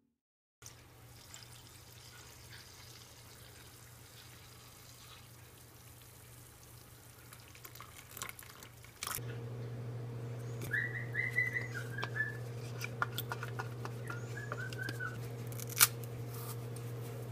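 A steady low hum, which steps up louder about nine seconds in, under faint handling noises at a kitchen counter: a spoon stirring in a coffee mug, then a banana being peeled. A few short high whistling chirps come near the middle, and there is one sharp click near the end.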